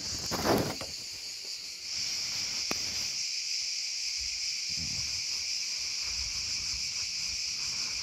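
Steady high-pitched chirring of an insect chorus, a little louder from about two seconds in, with a short rustle near the start.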